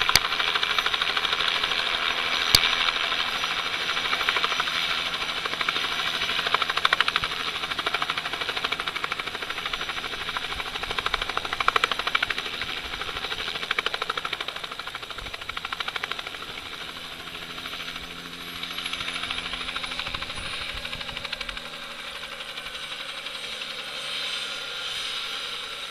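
Light helicopter lifting off and flying away: rapid rotor chop with a turbine whine, fading steadily as it departs. The whine drops in pitch in the second half.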